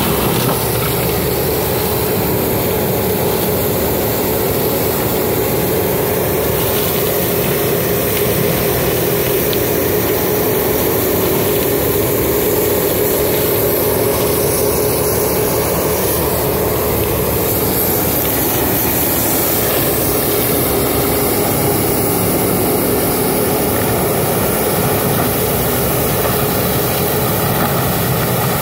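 Pantsar tracked forestry mulcher running steadily under load, its diesel engine and spinning front mulching drum shredding dry reeds and brush. It makes a constant heavy drone with a steady tone, which stays even throughout.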